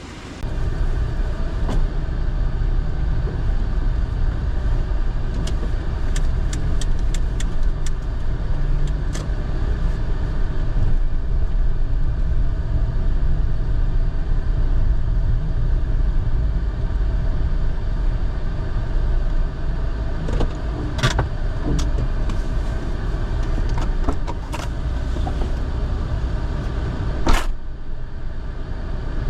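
A car driving: a steady engine and road rumble that starts about half a second in, with a few scattered sharp clicks and knocks.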